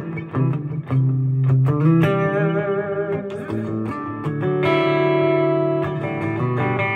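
Custom T-style electric guitar with Porter Blender humbucker pickups, played picked single notes with wavering vibrato about two seconds in, then a full chord left ringing for the last couple of seconds.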